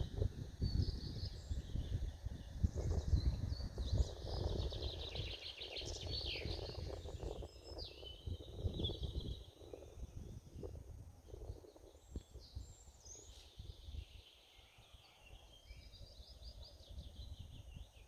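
Small songbirds singing and chirping in pine woods, with a couple of rapid trills, over an uneven low rumble that is louder in the first half and fades away later.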